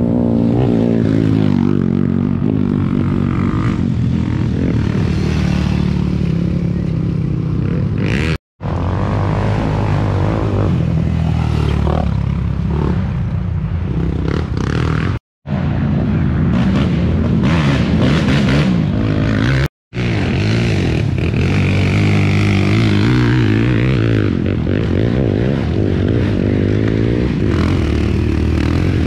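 Racing quad (ATV) engines running hard, their pitch rising and falling as they rev. The sound drops out for an instant three times.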